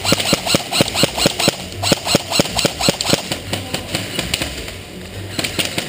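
Airsoft gun firing a rapid string of single shots, about four a second for roughly three seconds, with a few more shots near the end.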